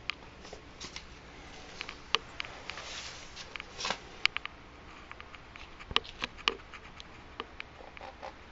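Irregular small clicks and taps, a few of them sharp, over a steady faint hiss.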